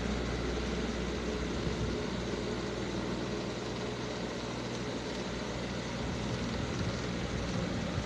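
Steady low rumble with a hiss over it, even throughout, with no distinct events.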